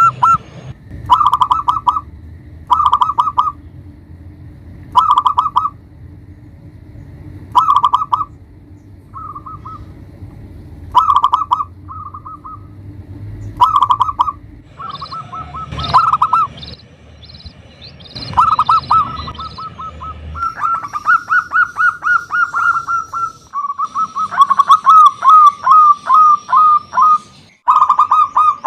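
Zebra dove (perkutut) cooing: short runs of rapid staccato notes, repeated every second or two, then from about halfway longer, almost unbroken runs that overlap like more than one bird calling.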